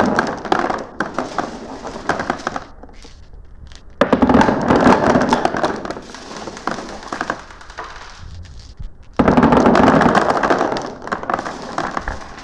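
Glass marbles clattering and rolling down a marble run, a dense rattle of quick clicks. Fresh surges start suddenly about four seconds in and again about nine seconds in, each fading over a few seconds.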